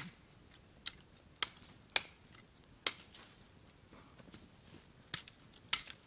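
Dry branches and twigs cracking in a series of sharp, irregular snaps, about seven in the space of a few seconds.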